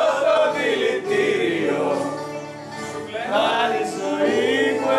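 A group of men singing together, with a brief softer dip partway through.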